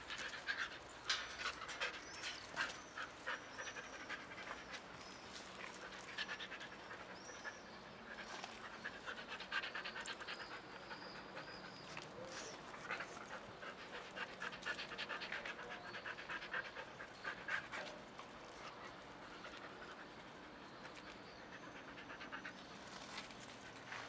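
A dog panting in quick, rapid breaths, easing off about three-quarters of the way through.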